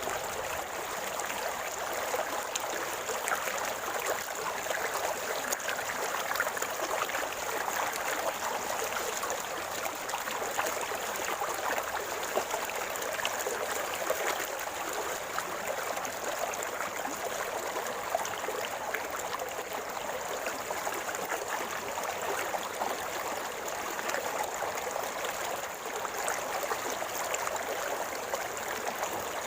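River water flowing and gurgling, a steady, even rush of water.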